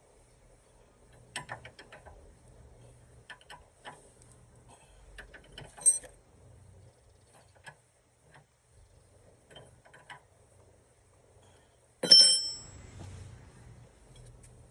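Scattered clicks and clinks of hand tools working on metal car parts, with a short ringing ping about six seconds in and a loud, ringing metal clang near the end.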